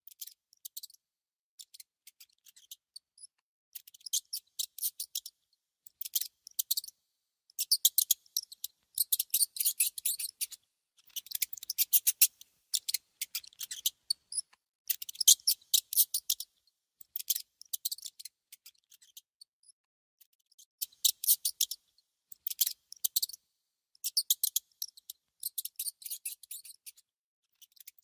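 A mouse nibbling and gnawing on food: bursts of rapid crisp ticks, each a second or so long, broken by short pauses.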